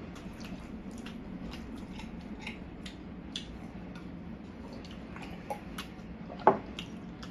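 Close-miked eating sounds: chewing and small wet mouth clicks, with scattered light ticks, and one sharper knock about six and a half seconds in.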